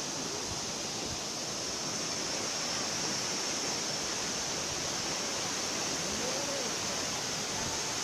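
A waterfall's steady rush of falling water, an even wash of noise with no breaks.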